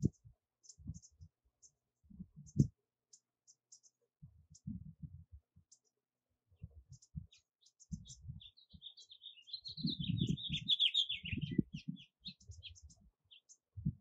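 American bushtits calling: thin, high, short contact notes scattered all through, with a run of rapid twittering from about eight to twelve seconds in. Soft low thumps and clicks come and go underneath and are the loudest sounds.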